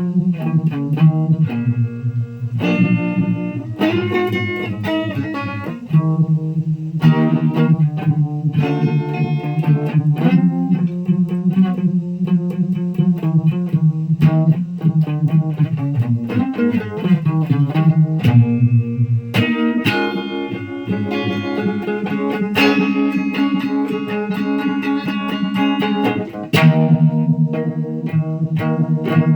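Electric guitar played through effects pedals, a continuous run of notes and chords with many overtones.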